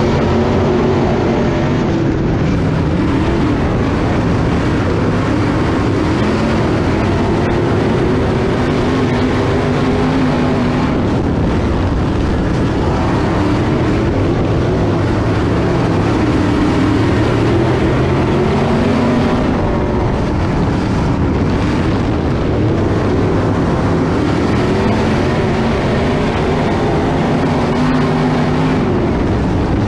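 Dirt late model race car's V8 engine running loud and steady, heard from inside the cockpit, its pitch wavering up and down a little with the throttle and no big revs.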